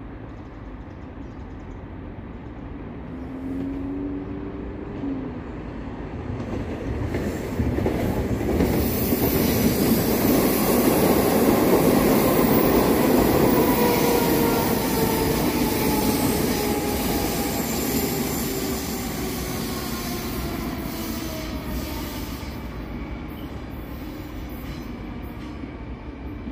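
Metro train passing and running away round a curve: the rumble of wheels on rail builds to a peak about ten seconds in and then fades. High tones, likely wheel squeal on the curve, glide down in pitch as it goes.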